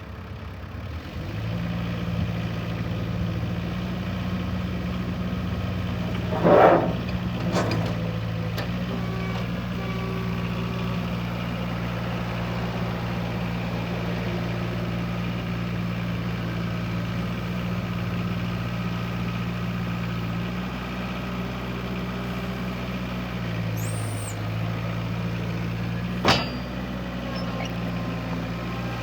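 New Holland LX565 skid steer engine running steadily, its note shifting briefly a little past two-thirds of the way through. A few loud metallic clanks come in between, two close together early on and one more near the end.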